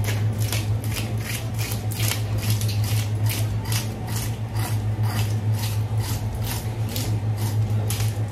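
Scales being scraped off a large Japanese meagre (ōnibe), about three or four quick rasping strokes a second, over a steady low hum.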